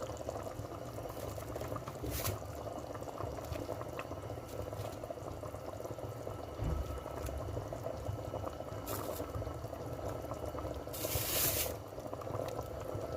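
A pot of liquid at a steady boil, bubbling, with kubba dumplings cooking in it until they float. There are a few faint clicks, and a short hiss near the end.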